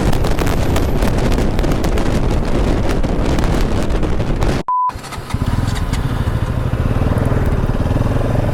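Bajaj Pulsar NS200 motorcycle running at highway speed, heavy wind buffeting on the mic over the engine. About halfway the sound drops out with a short beep, then a steadier low engine drone follows.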